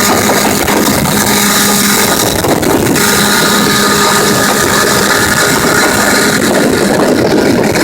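8 hp Evinrude outboard motor running steadily, with a change in its sound about three seconds in.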